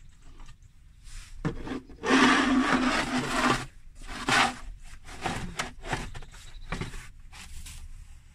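Rough scraping and crunching in snow: one long scrape about two seconds in, then a run of shorter scrapes and crunches.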